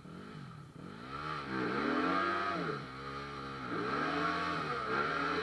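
Trail motorcycle engine revving, its pitch swinging down and back up twice.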